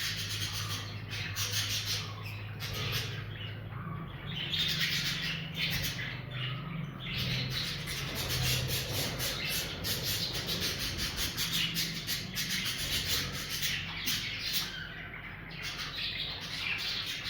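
Several budgies (budgerigars) chattering and chirping without a break, a dense mix of short chirps and squawks.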